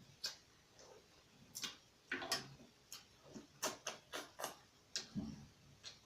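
Close-miked eating sounds: irregular wet clicks and smacks of chewing and lips, about a dozen in six seconds, with a short hummed 'mm' about five seconds in.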